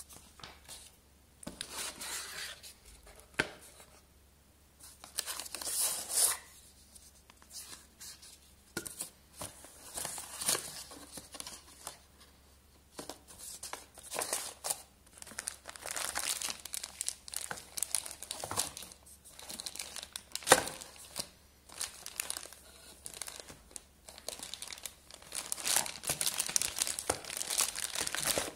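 Unboxing packaging being handled: a clear plastic accessory bag crinkling and the cardboard box and tray rustling in irregular bursts, with a few sharp clicks.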